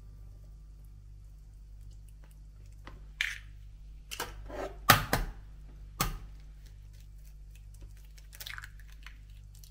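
Raw eggs being cracked and separated by hand: a few sharp cracks and taps of eggshell, the loudest about five seconds in, with soft wet sounds of egg white slipping into a plastic tub.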